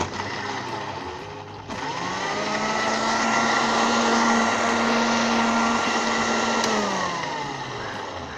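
Electric countertop blender puréeing roasted eggplant with yogurt and tahini into baba ganoush. The motor starts, rises in pitch to full speed about two seconds in, runs steadily, then winds down near the end.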